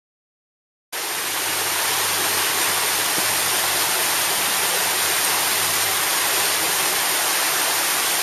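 Water cascading down a waterfall, a steady rushing hiss that starts abruptly about a second in.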